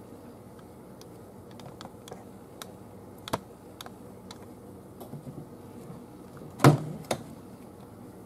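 Scattered light clicks and then a loud knock with a second smaller one close behind it, from handling the air-fry oven and its perforated metal tray, over a faint steady hum.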